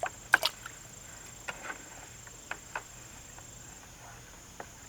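Scattered light clicks and knocks from a garden hose being handled and dipped into a bucket of water to prime it, over a steady high-pitched drone of crickets.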